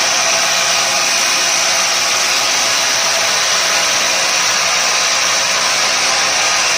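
Dowel-making machine (broom-handle lathe) running steadily with an even, unbroken whirring noise.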